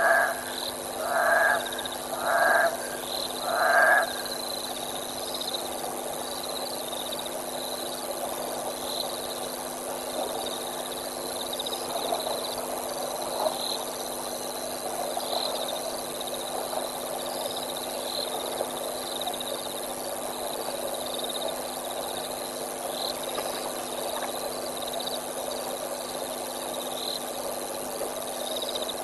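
Night-time wildlife chorus: a loud two-toned animal call repeated four times, about one every second and a bit, in the first four seconds, then a steady background of insects and frogs with rapid high chirping.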